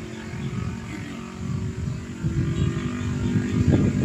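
Wind gusting against the phone's microphone, a low buffeting rumble that grows stronger toward the end, with a faint steady hum beneath it.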